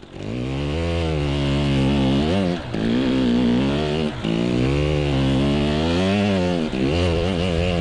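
2020 KTM 300 XC TPI two-stroke single-cylinder dirt bike engine revving hard under throttle, its pitch climbing and falling several times with brief throttle cuts.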